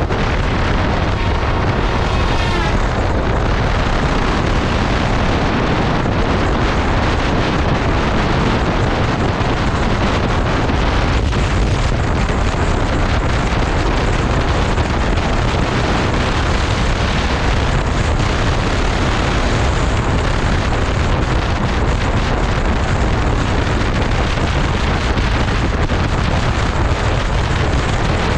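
Wind buffeting the microphone on a moving motorcycle, with the bike's engine running underneath: a loud, steady rush with no breaks.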